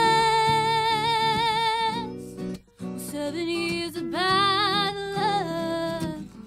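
A woman singing long held notes with vibrato over a strummed acoustic guitar: one note held for about two seconds, a short break, then a second phrase that rises and holds from about four seconds in.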